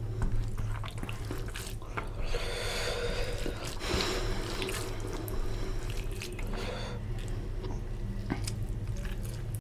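Wet, squelching sounds of eating rice with oily fish curry by hand, with many small clicks throughout and a denser wet stretch between about two and four and a half seconds in.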